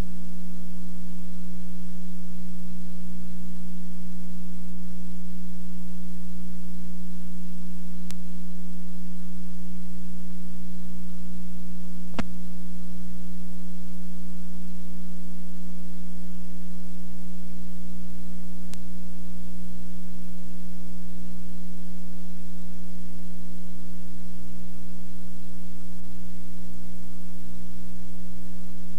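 Loud, steady electrical hum with no other sound, on the audio track of a blank stretch of videotape. There are a few faint clicks, the clearest about twelve seconds in.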